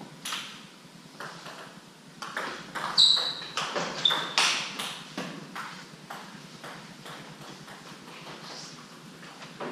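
Table tennis rally: the celluloid ball clicks back and forth off bats and table in quick succession, thickest over the first five seconds and then thinning out. Two short high squeaks come about three and four seconds in.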